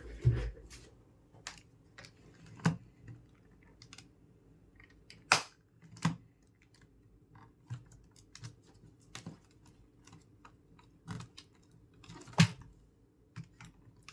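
Irregular clicks and taps from computer hardware being handled, with a low thud at the start and two sharper clicks, about five seconds in and near the end.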